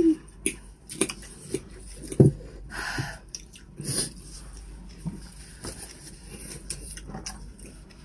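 People eating at a table: chewing and mouth sounds with scattered clicks and taps of a fork against a salad bowl and plates, the sharpest about two seconds in, and a brief hum at the very start.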